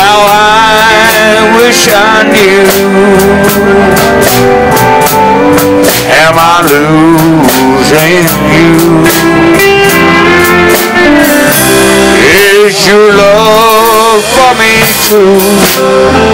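Live country band playing a slow song: electric guitar and drum kit with a steady hi-hat, and a man singing at times.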